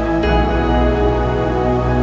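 Background music of long held chords over a steady deep bass note; the chord changes a moment after the start.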